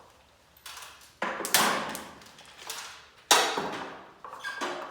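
Garage door torsion hardware, steel end bearing brackets, clanking as it is handled and set down: a handful of sharp metallic knocks with short ringing, the loudest about a second and a half in and again a little after three seconds.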